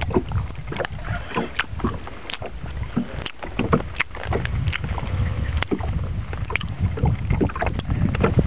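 Wind rumbling on the microphone, with many irregular sharp clicks and knocks from handling in a wooden boat.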